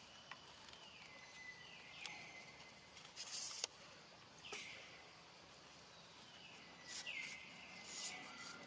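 Faint forest ambience: a call repeats about every two and a half seconds, each time sliding down in pitch and settling into a held, whistle-like tone. Two short hissing bursts cut across it, the louder about three and a half seconds in and another about seven seconds in.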